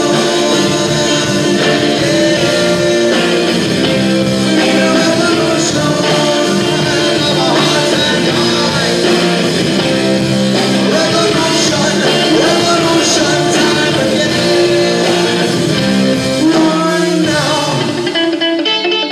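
Rock band playing live: amplified instruments in a dense, steady mix that thins out and drops its low end near the end.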